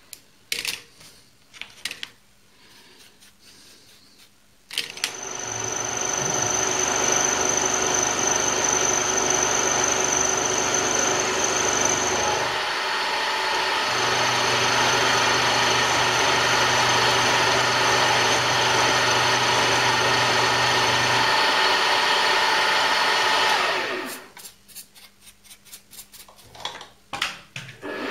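Small milling machine starting about five seconds in and running steadily as an end mill cuts into aluminium stock, a motor whine over the cutting noise. It winds down near the end, and a quick run of clicks comes before the start and after the stop.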